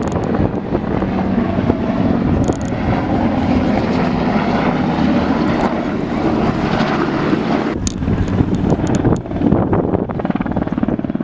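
An aircraft flying low, its engine and propeller noise loud and steady, with a rapid chopping beat coming through near the end.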